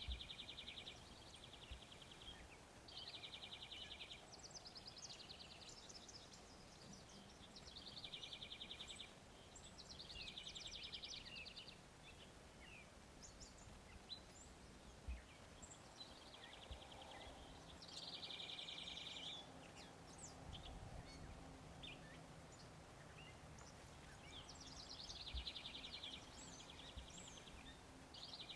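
Faint songbird trills: short rapid runs of notes about a second long, repeated every few seconds, with scattered single chirps between.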